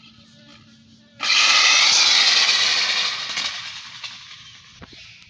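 Electric RC drag car launching down asphalt on a test hit: its motor whine and tyre noise start suddenly and loud about a second in, then fade over the next couple of seconds as the car speeds away.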